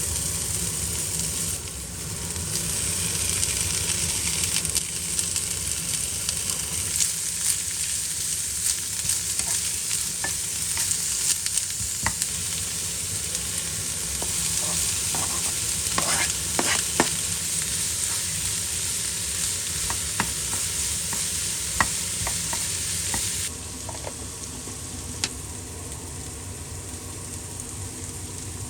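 Food sizzling in a hot frying pan while being stir-fried, with a utensil clicking and scraping against the pan throughout. The sizzle drops to a quieter level about three-quarters of the way through.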